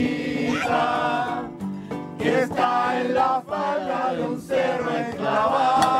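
A group of people singing a song together, accompanied by an acoustic guitar.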